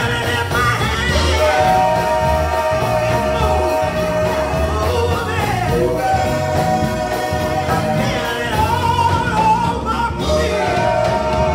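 Gospel song sung by a small church praise team on microphones over instrumental accompaniment, with long held notes that glide from pitch to pitch.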